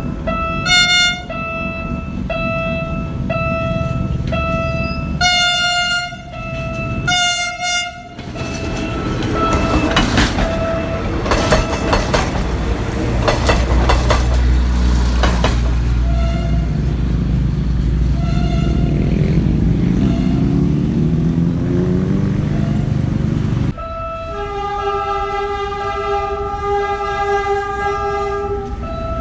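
A PT-INKA diesel-hydraulic multiple unit sounds its horn in a series of short, high toots, then runs past with loud engine rumble and wheels clacking over rail joints. About 24 s in, after a cut, a different, lower-pitched train horn sounds in a long, held blast.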